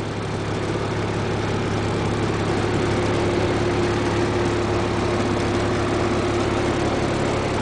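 Steady low hum of the motorhome's engine running at idle, heard from inside the coach; a faint steady tone joins it about two and a half seconds in.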